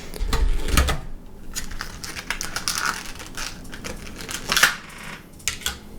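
Torn plastic wrap from a Pokémon card tin crinkling and rustling as it is pulled away, mixed with a string of quick clicks and taps from the tin being handled.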